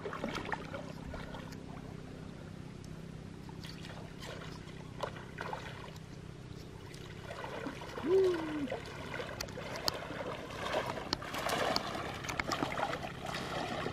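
Water trickling and splashing, with scattered clicks and knocks that grow busier over the last few seconds, while a hooked giant snakehead (toman) is played in. A short vocal sound comes about eight seconds in.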